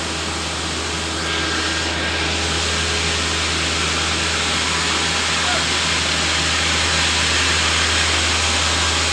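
Machinery running steadily with a constant low hum and a loud hiss, growing a little louder about a second in.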